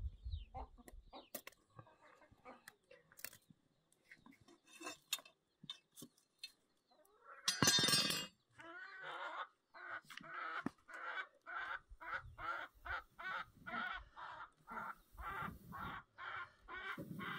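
Chickens clucking: scattered faint knocks at first, a short loud squawk-like burst about halfway, then a steady run of short, evenly repeated clucks, two or three a second.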